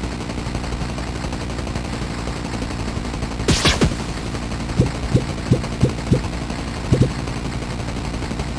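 Bus engine idling with a steady rattling rumble. About three and a half seconds in, a sharp pneumatic hiss as the bus door opens. It is followed by a run of dull thumps, about three a second.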